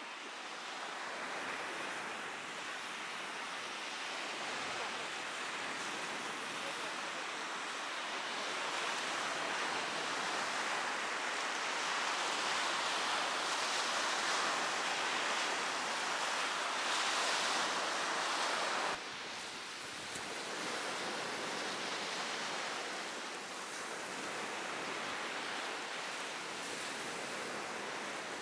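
Sea surf washing onto a sandy beach, a steady rush of small breaking waves. It grows louder through the middle and drops off suddenly about 19 seconds in.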